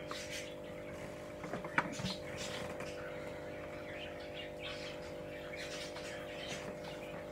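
Faint bird chirps scattered over a steady low electrical hum, with one short sharp click about two seconds in.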